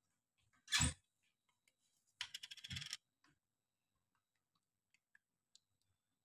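A knock, then a short rattling clatter of small hard objects coming to rest on a table, as kitchen utensils or containers are handled and set down.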